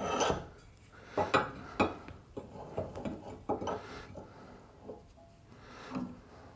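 Hand file being drawn across the steel edge of a mower blade, a string of short, uneven rasping strokes about two a second, touching up the cutting edge.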